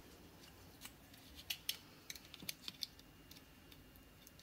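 Faint, irregular light clicks and taps of a small screwdriver tip working against the plastic case of a DeWalt FlexVolt battery pack, prying its top cover loose from the catches and silicone holding it down.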